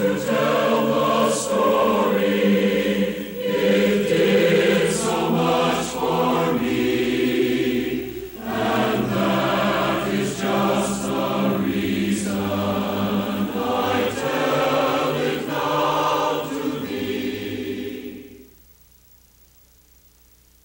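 A choir singing, which stops about eighteen seconds in, leaving a faint steady hiss.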